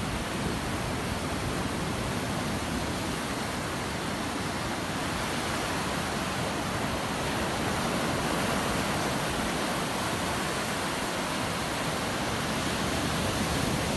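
Ocean surf breaking and washing up a sandy beach: a steady rush of waves that grows a little louder in the second half.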